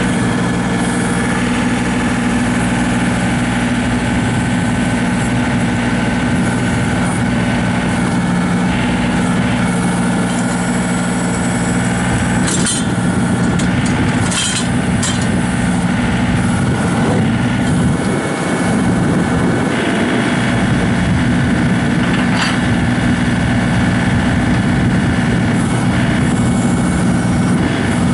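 John Deere 2032R compact tractor's three-cylinder diesel engine running steadily, with a few short clanks about halfway through.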